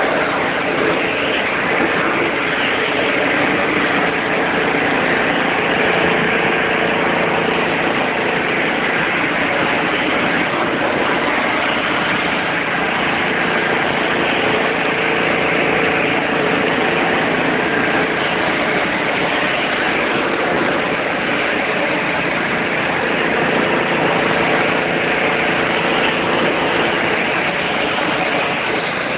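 Pressure washer running steadily: a constant engine drone under a dense hiss.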